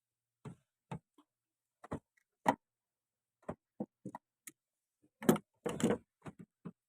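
A series of irregular, short clicks and knocks, about a dozen, with a louder cluster of knocks about five to six seconds in.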